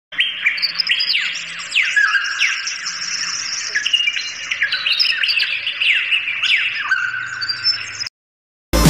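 Many birds calling at once, a dense run of overlapping high chirps and squawks that each slide quickly downward in pitch, cutting off abruptly about eight seconds in. A brief loud burst of noise follows right at the end.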